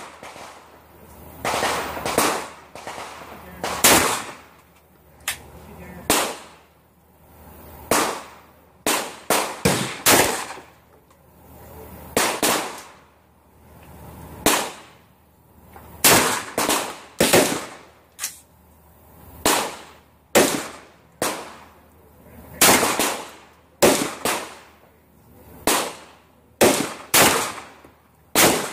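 Saiga-12 semi-automatic shotgun firing slugs: a long string of about thirty sharp shots at an uneven pace, some in quick pairs, each trailing off in a short echo.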